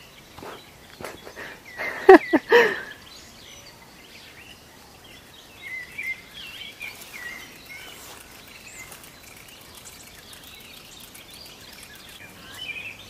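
Open-air ambience with birds chirping faintly, and a loud, short burst of pitched calls about two seconds in.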